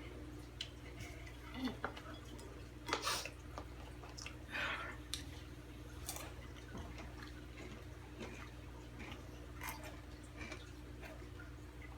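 Quiet, scattered crunches and rustles of spicy rolled tortilla chips (Takis) being chewed and handled, a few short noises at a time with pauses between, over a steady low hum.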